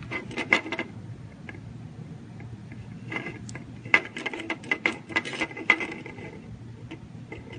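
Close handling noises: small sharp clicks and rustles as a tiny plastic sound module is handled and shock-absorbing foam tape is peeled and pressed onto its back. There is a cluster of clicks right at the start and a busier run from about three to six seconds in.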